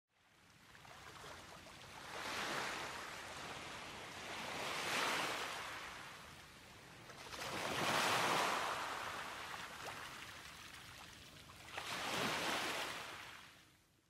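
Ocean surf: waves breaking and washing up a sandy beach, swelling and fading four times, loudest about eight seconds in.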